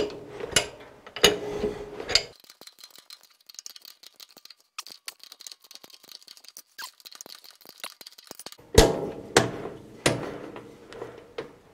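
Metal clanks and clinks of a threading die stock and wrench knocking against a three-jaw lathe chuck as the chuck is turned by hand to cut a thread. There are a few sharp clanks in the first two seconds, then a quiet stretch of faint ticks, then three louder clanks with a short metallic ring near the end.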